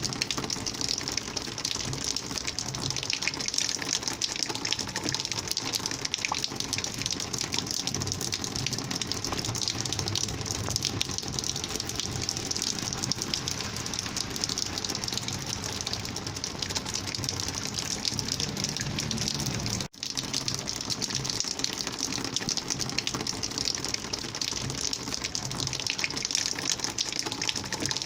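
Steady rush of flowing rainwater, an even gushing hiss that cuts out for an instant about twenty seconds in.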